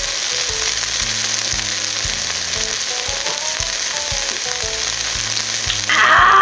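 Pork and king oyster mushrooms sizzling on an electric grill pan, a steady frying hiss under a light background tune. About six seconds in, a person gives a loud shout.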